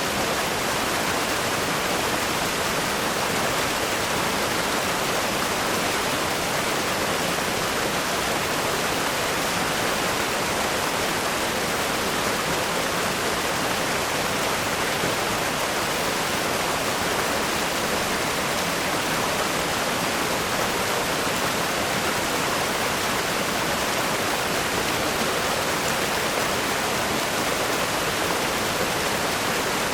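River rapids rushing over rocks: a steady, unbroken roar of fast-flowing water.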